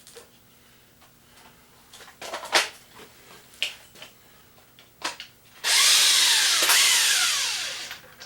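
A few metal clicks and knocks of a socket and tools being handled, then a power tool, likely an impact wrench, runs in one loud burst of about two and a half seconds, its pitch falling as it winds down.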